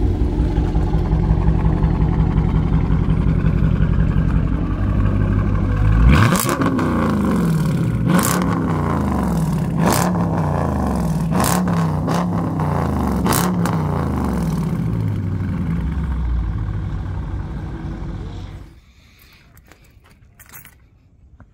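Dodge Challenger 392's 6.4-litre HEMI V8, exhaust with its mid-mufflers deleted, idling, then revved in a series of quick throttle blips about two seconds apart, each rising and falling in pitch. It then settles back to idle, and the sound cuts off about three seconds before the end.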